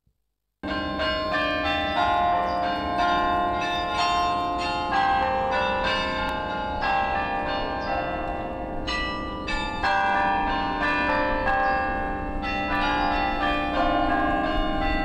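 Church bells ringing, many bells of different pitches struck in quick succession, each ringing on. They start suddenly about half a second in.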